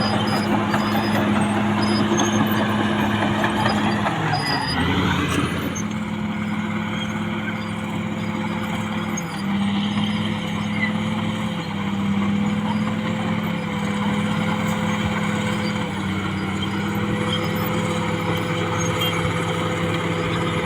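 Caterpillar D6R XL bulldozer's diesel engine running steadily under work; about four to five seconds in its speed drops and settles at a lower, steady pitch.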